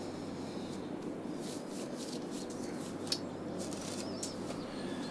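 Clothing rustling in short strokes as a top is pulled on, with one sharp click about three seconds in, over a steady low room hum. Faint bird chirps in the background.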